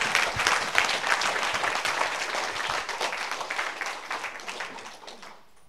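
Church congregation applauding in response to a call to shout hallelujah. The clapping fades steadily and has almost died away by the end.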